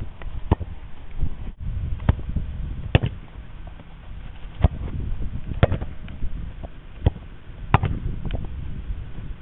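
Soccer balls being kicked and bouncing off a handheld shield: a string of sharp thuds every second or so, over low wind rumble on the microphone.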